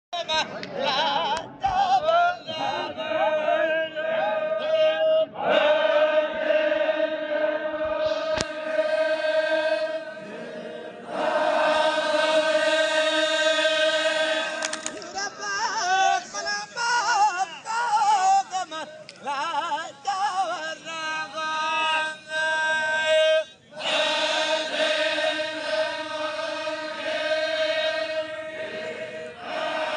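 Zikri chogan: a group of men chanting devotional verse in long held notes, with short breaks. In the middle the notes waver and bend.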